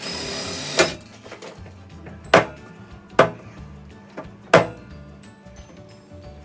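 Four sharp knocks, spaced about a second apart, over background music, with a short hiss just before the first one.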